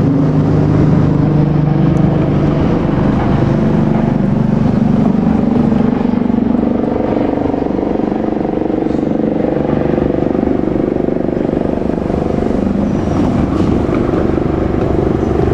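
Diesel engines of a KiHa 47 railcar running under load, the engine note climbing slowly in pitch through the latter part.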